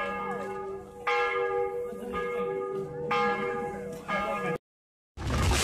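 Church bells ringing in a festive peal, struck about a second in, again about three seconds in and once more about four seconds in, each stroke ringing on with several clear tones. The sound then cuts out abruptly, and a loud, even rushing noise begins just before the end.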